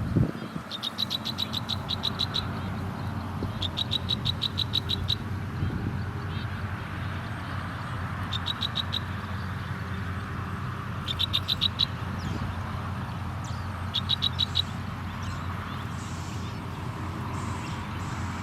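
Young sparrow-type birds giving rapid, high-pitched ticking calls in short bursts about a second long, five times, over a steady low background rumble.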